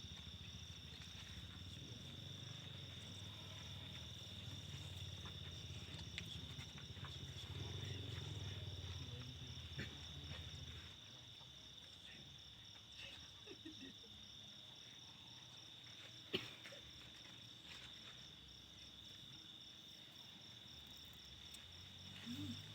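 Insects, crickets, trilling steadily in a continuous high chorus, with a faster pulsing chirp above it. A low rumble runs through the first half, and one sharp click comes about 16 seconds in.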